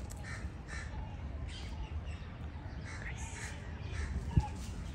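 Crows cawing, several short calls, over a steady low rumble, with a single sharp knock near the end.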